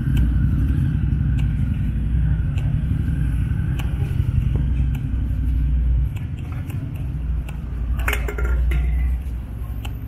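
City street sound dominated by a steady low rumble of motor-vehicle traffic, easing a little past the middle, with light clicks about once a second and a brief clatter about eight seconds in.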